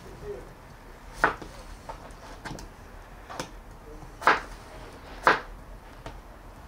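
Kitchen knife cutting peeled potatoes into quarters on a cutting board: about five sharp, irregularly spaced knocks of the blade, three of them louder.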